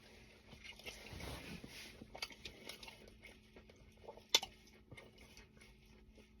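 Quiet chewing and small mouth clicks from someone eating close to the microphone, with one sharper click about four seconds in.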